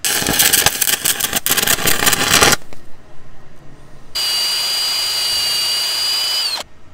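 Stick-welding arc crackling for about two and a half seconds as a crack in a Honda Pilot's rear steering knuckle is welded. About four seconds in, a cordless drill runs steadily against the fresh weld with a high whine for about two and a half seconds, then winds down and stops.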